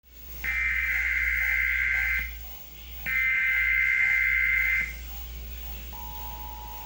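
Emergency Alert System broadcast tones: two bursts of SAME header data, each a shrill warbling screech lasting about two seconds with a short gap between, then near the end the steady two-note EAS attention signal begins.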